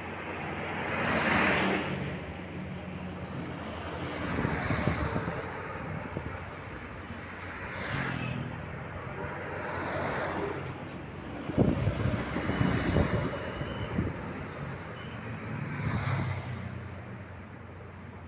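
Road traffic: vehicles passing one after another, each swelling and fading, about six in all. The loudest pass, a little past the middle, has a deep rumble.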